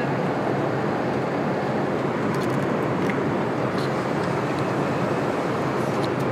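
Steady cabin noise of an Airbus A380 in flight: the even rush of airflow and engines, with a few faint small clicks in the middle.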